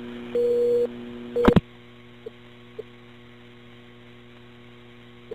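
Steady electrical mains hum on a recorded 911 telephone line, starting with a click, a short beep about half a second in and a second click about a second and a half in; a few faint ticks follow.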